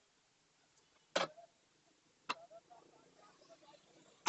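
Three sharp metal knocks, spread a second or two apart, with faint small rattles between them, as the front axle is worked into the wheel hub and fork of a Royal Enfield Continental GT650.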